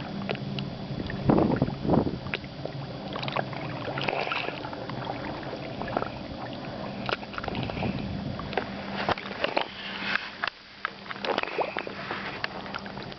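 A beach stone making a rasping, snoring-like noise as sea waves wash in and out around it, mixed with sloshing and gurgling water. The noise comes in repeated surges, the loudest about a second and two seconds in.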